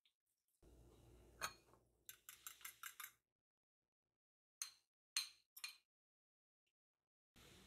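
Light clinks of a kitchen utensil against a glass mixing bowl: a single clink, a quick run of about six taps, then three more spaced taps.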